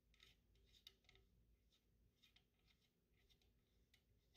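Near silence with faint, scattered small ticks and rubbing as the M1 Garand's gas cylinder lock screw is turned in by hand.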